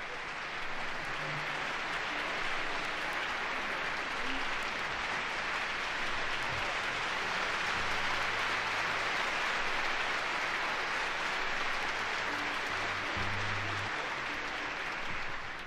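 Concert audience applauding on a live jazz record played from vinyl, a steady dense clapping that dies away near the end.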